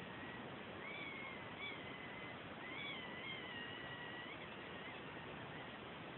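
A cat making thin, high-pitched squeaking calls, several of them drawn out with a wavering pitch, over a steady background hiss.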